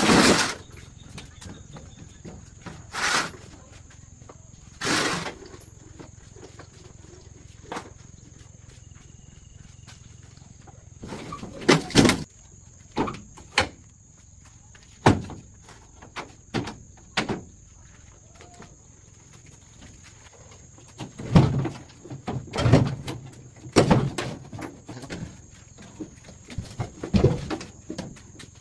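Irregular knocks and clunks from hand work on an old car, coming singly and in short clusters over a faint steady high hiss.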